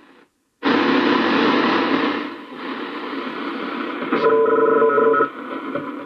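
Sony CRF-320 shortwave receiver's loudspeaker: it cuts out for a moment, then comes in with loud static as the shortwave dial is turned. About four seconds in, steady tones sound over the static for about a second as a signal is tuned through. Live static like this is the sign that this tuning step of the receiver's front end is working.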